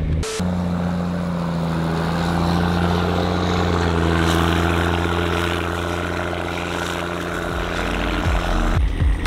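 Prinoth snowcat's diesel engine running steadily under load, towing a pickup truck through deep snow. It is a steady droning hum that breaks off suddenly near the end.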